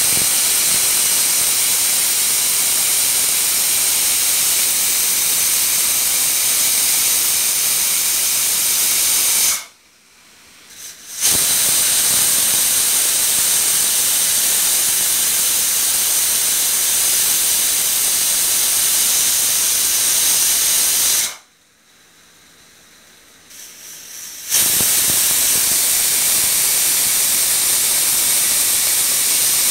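Stovetop pressure cooker whistling: steam hisses loudly out from under the weight valve in three long bursts, with short pauses about ten seconds in and again about twenty-one seconds in, the third still going at the end. The rice inside is cooking under pressure, and the whistles are counted to time it.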